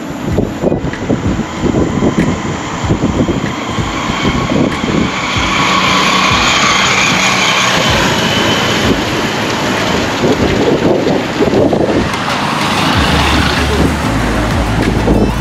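Wind buffeting the microphone of a moving bike, over the noise of road traffic, with a low steady hum near the end.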